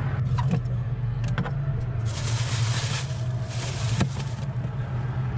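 Steady low hum of road traffic, with a few sharp knocks and a stretch of plastic bag rustling against fish in a cooler, about two seconds in.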